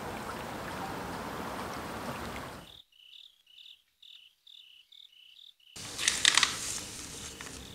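A steady hiss of background noise that cuts off about three seconds in, leaving insect chirping alone: short high chirps, about three a second, alternating between two pitches. The hiss comes back near the end with the chirping faintly beneath it.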